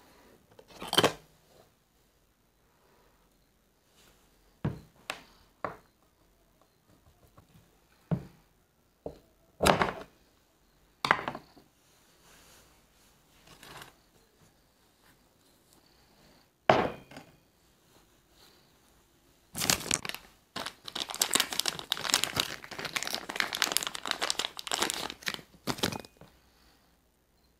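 Scattered single clicks and knocks of small parts and tools handled on a wooden table. Near the end, a stretch of about six seconds of thin plastic bag crinkling as a small parts bag is handled.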